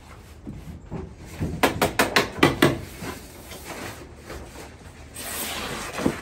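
A quick run of about half a dozen knocks and taps, then a rustling hiss near the end, as a roll of black building paper is handled and unrolled against plywood sheathing from wooden scaffolding.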